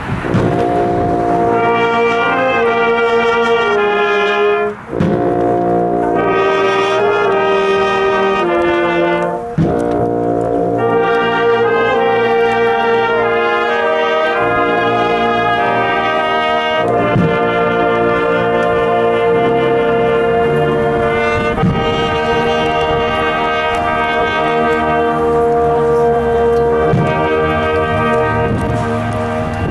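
Brass band of trumpets, euphoniums, sousaphone and trombone playing a slow piece in long held chords, with short breaks between phrases about 5 and 9.5 seconds in.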